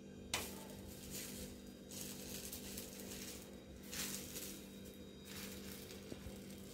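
Folded egg paratha set down on a hot iron tawa with a light tap, then hissing on the griddle in three spells of a second or more each, over a steady low hum.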